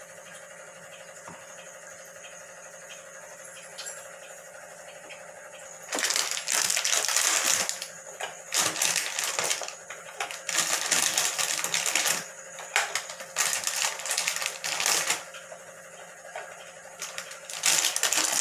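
Groundnut candy pieces handled and placed into a stainless steel lunch box, giving repeated bursts of clattering, crackling handling noise that start about six seconds in; before that only a faint steady hum.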